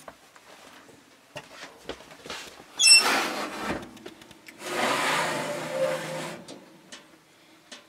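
Kitchen oven door pulled open with a sharp metallic clank and brief ring about three seconds in. The metal oven rack then slides out with a scrape lasting a second or two, with small clicks of handling around it.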